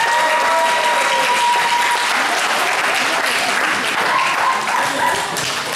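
Spectators applauding a wrestling bout, with a steady high note held over the first two seconds and a shorter one at about four seconds in.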